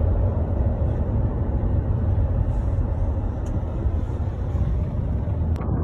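Steady low rumble of road noise from a moving vehicle, with a couple of faint clicks.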